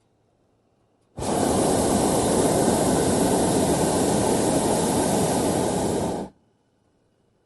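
Hot-air balloon burner firing in one blast of about five seconds: a steady, loud rush of noise that starts suddenly about a second in and cuts off just as suddenly.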